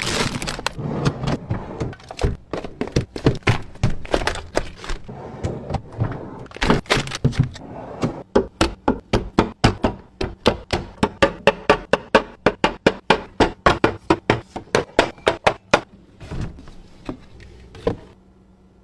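Fridge restocking: containers, jars and bottles being set down and slotted onto refrigerator shelves, making many sharp clacks and knocks. In the second half they come in a fast, even run of about three to four a second, then thin out near the end.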